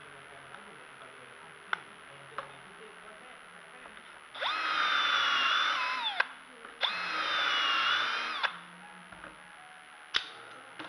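Milwaukee M12 cordless drill boring two holes through a dowel jig's metal bushings into a wooden board: two runs of about two seconds each, the motor whine dropping in pitch as the first run stops. A few sharp clicks come before and after the drilling.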